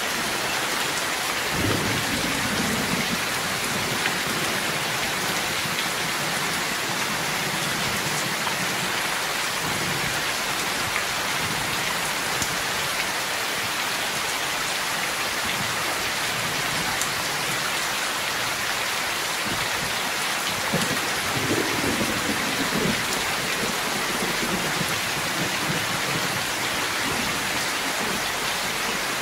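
Heavy rain pouring steadily off a roof edge onto wet ground. Thunder rolls in low twice, about two seconds in and again about twenty-one seconds in.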